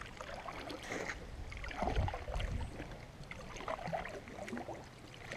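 Kayak being paddled: paddle blade dipping and water splashing and dripping by the hull in irregular strokes, with a couple of low thumps about two seconds in.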